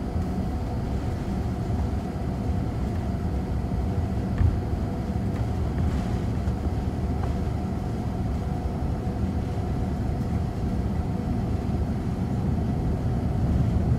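Airbus A330-200's Pratt & Whitney PW4000 turbofans at low taxi thrust, heard inside the cabin: a steady low rumble with a faint hum, growing slightly louder near the end.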